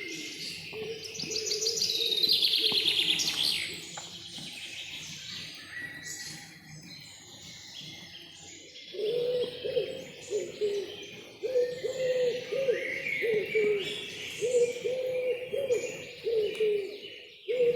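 Mixed forest birdsong: many high chirps and whistles, with a loud, fast trilling song in the first few seconds. From about halfway, a short low call is repeated many times in quick succession beneath the chirping.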